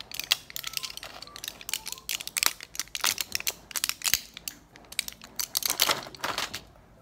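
Plastic or foil medicine packaging crinkling and crackling as it is handled, a dense run of irregular crackles.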